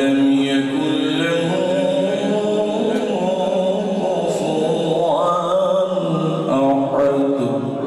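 A man's voice chanting Arabic recitation unaccompanied, in the melodic qira'at style, with long held, ornamented phrases.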